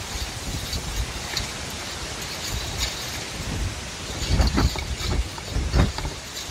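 Wind blowing through a forest: a steady rushing hiss with irregular low gusty rumbles, strongest about four and a half and six seconds in.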